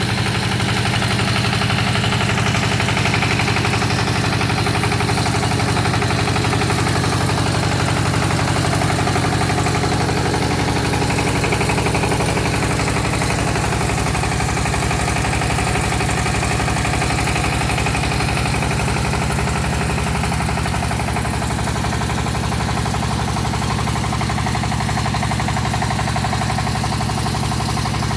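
Engine powering a hydraulic water-well drilling rig, running steadily on test, with a slight change in its note about two-thirds of the way through.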